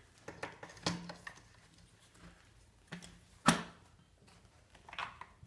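The front fork and plastic swivel-mechanism parts of a Mountain Buggy Urban Jungle stroller clicking and knocking as they are handled and fitted back together. There are several light clicks, and one sharp knock about three and a half seconds in.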